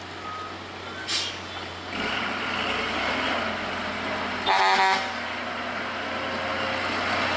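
Heavy vehicle traffic running steadily, with one short horn blast of about half a second, about four and a half seconds in.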